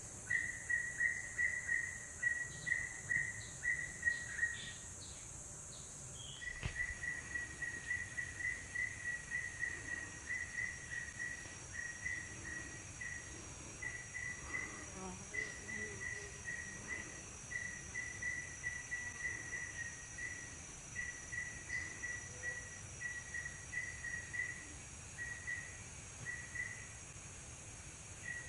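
Forest insects: a steady high-pitched drone under a repeating chirp of one pitch, about two a second. The chirping pauses briefly around five seconds in, then carries on.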